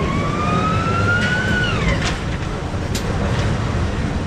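Revolution roller coaster train pulling out of the station, rumbling along the track. A whine rises in pitch as the train gathers speed, then drops away about two seconds in, with a few sharp clanks after.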